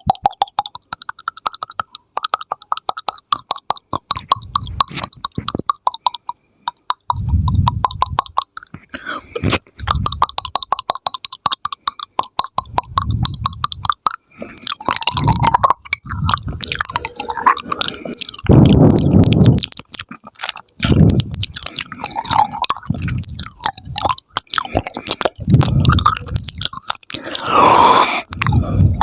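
ASMR mouth sounds: a fast run of tongue clicks and pops for about the first nine seconds, then irregular wet smacking and popping sounds.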